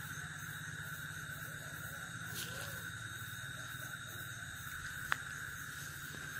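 Steady high drone of a night insect chorus. A single sharp click about five seconds in.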